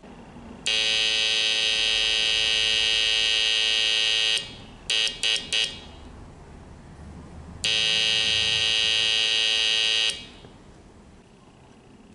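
Homemade Morse code oscillator keyed by a microswitch, sounding a buzzy, steady-pitched tone through a small loudspeaker. It plays one long tone of nearly four seconds, four quick beeps, then another long tone of about two and a half seconds.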